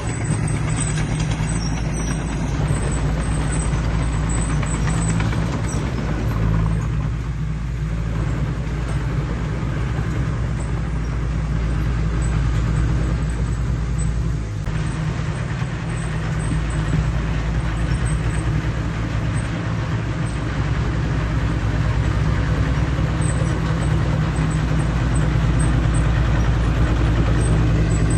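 Heavy diesel earthmoving machinery running steadily with a deep, even engine drone, shifting slightly in level a few times.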